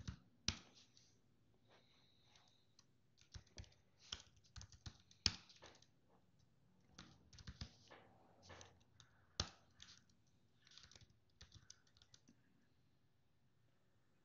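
Computer keyboard typing: faint, irregular key clicks in quick runs, stopping about two seconds before the end.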